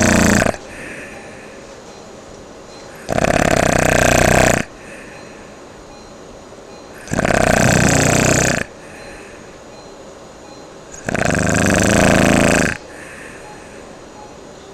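A person snoring loudly with the uvula fluttering: palatal snoring. Snores of about a second and a half come in a slow, even rhythm, one roughly every four seconds.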